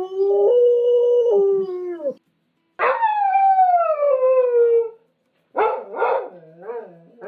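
Dog howling: one long howl held at a steady pitch for about two seconds, then a second howl that falls in pitch, then a few short barks or yelps near the end.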